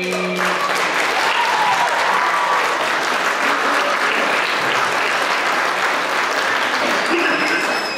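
Audience applauding, with a held sung note breaking off about half a second in.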